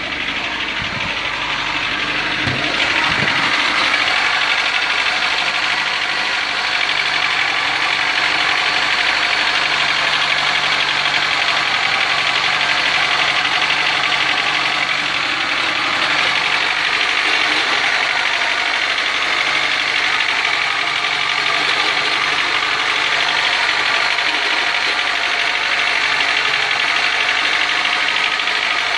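Carburetted VAZ-2109 (Lada Samara) engine running steadily with a grinding noise from the cylinder head near the distributor. The owner reads it as a fault in the head: oil pressure is fine and the engine isn't using oil.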